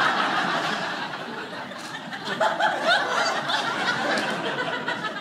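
Audience laughing: a full round of laughter that thins after about two seconds into scattered chuckles.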